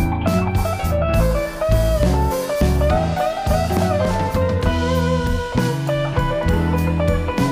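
Background music: a guitar-led instrumental with bass and drums at a steady beat.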